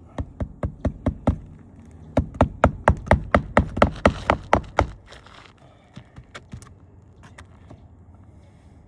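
Hammer driving roofing nails through a new asphalt shingle into the roof decking: a quick run of blows at about four a second, a short pause, then a longer, louder run of about a dozen blows, with a few light taps near the end.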